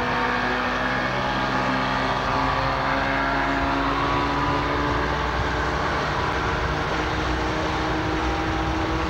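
Motorboat engine running steadily at cruising speed, a constant drone with water rushing past the hull.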